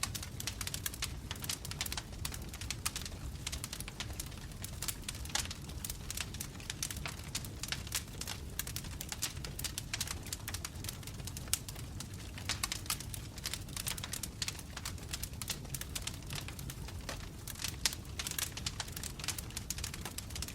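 Wood fire burning in a fireplace: logs crackling with many irregular sharp pops over a steady low rumble.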